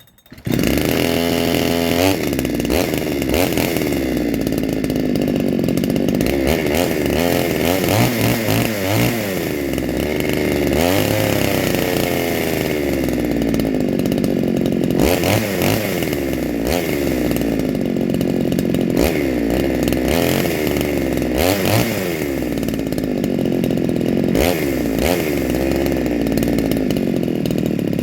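Chinese MS360-clone two-stroke chainsaw firing up about half a second in, then running and being revved up and down over and over. It runs now that the flywheel fault behind its lack of spark has been put right.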